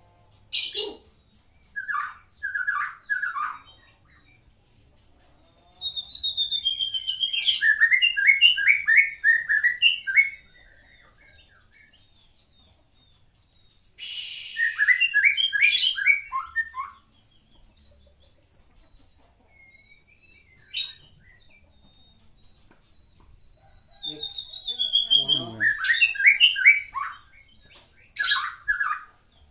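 A Medan white-rumped shama singing: several loud phrases separated by pauses of a few seconds. The longest is a rapid run of notes stepping down in pitch, and the song is packed with isian, mimicked fill-in phrases.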